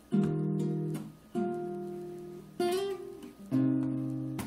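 Solo nylon-string classical guitar playing chords: about four chords struck and left to ring and fade, a quick run of notes near the middle, and a sharp percussive hit near the end.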